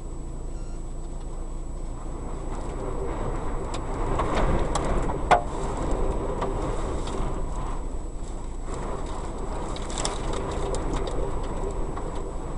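Strong wind blowing, a low noise that swells in a gust a few seconds in. A single sharp knock comes about five seconds in, and scattered light clicks and rattles follow later.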